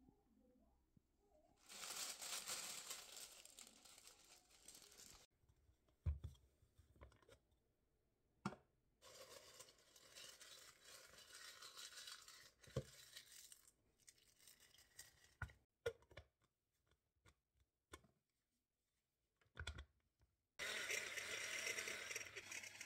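Dry bay leaves crinkling and crumpling as they are handled and torn, with several sharp knocks of the plastic chopper bowl and lid being set down. Near the end a Russell Hobbs hand-blender chopper starts and runs steadily, grinding the leaves.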